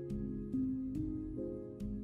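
Soft instrumental background music: a slow piano piece, a new note about every half second.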